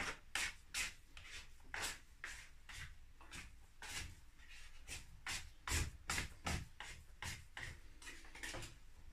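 Sticky sourdough being scraped and worked on a kitchen worktop with a plastic dough scraper and hands: an uneven run of short scraping strokes, about two a second, with a couple of dull thumps a little past halfway.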